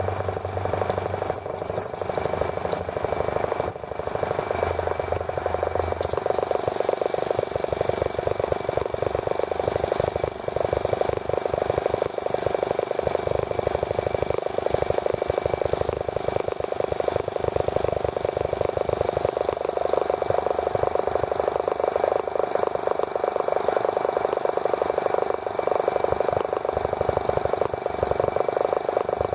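The small single-cylinder model engine of a T26 toy tractor running steadily with a fast, even firing buzz.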